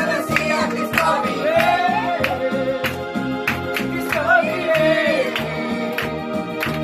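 Music with singing over a steady, regular beat.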